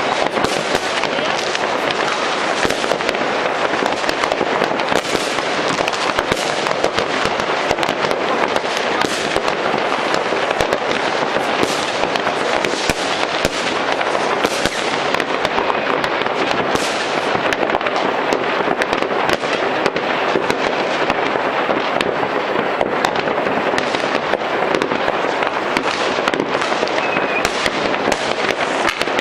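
Many fireworks going off at once across a city: a dense, unbroken crackle of bangs and pops, many small reports a second, with no pause.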